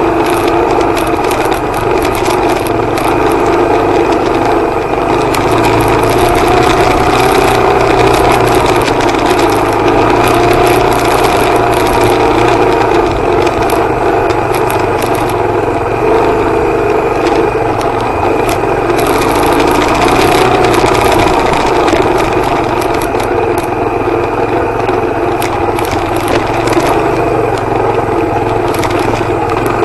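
Suzuki DR250R trail bike's single-cylinder four-stroke engine running steadily under way, its pitch rising and falling a little with the throttle. Frequent clicks and rattles run through it over the rough track.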